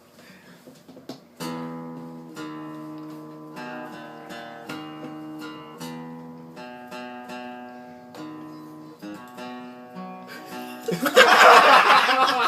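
Acoustic guitar music with plucked notes, a simple melody over held bass notes. Near the end a loud voice breaks in over it.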